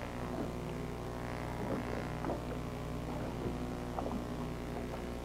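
Boat motor running at idle: a steady low drone, with a few faint soft sounds over it.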